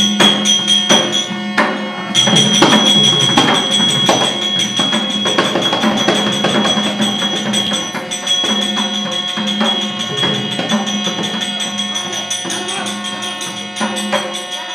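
Live accompaniment to a leather shadow-puppet battle scene: fast, irregular percussion of jingling cymbals and sharp clacks over a steady held note.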